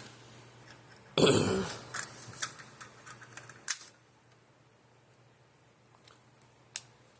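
Light clicks and taps of something small and hard being handled, with one short louder scrape about a second in. The clicks thin out to a few faint ticks.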